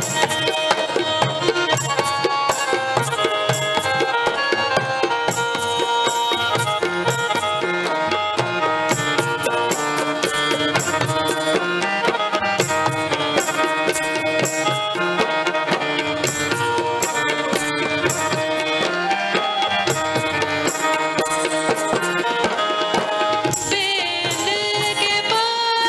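Instrumental interlude of a Hindu devotional song to Shiva: tabla playing a steady rhythm under sustained melody instruments, with a woman's singing voice coming back in near the end.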